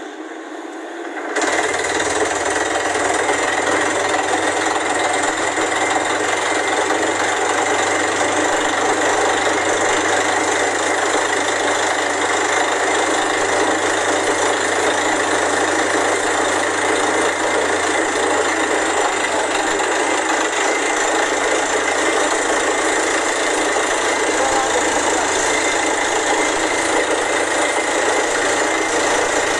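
Borewell drilling rig running: a loud, steady mechanical noise over a low engine hum, cutting in abruptly about a second and a half in.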